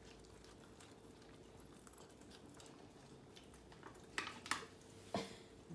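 A West Highland white terrier licking and chewing food from a metal spoon: faint, quiet licking, with a few sharp clicks about four seconds in and one more near the end.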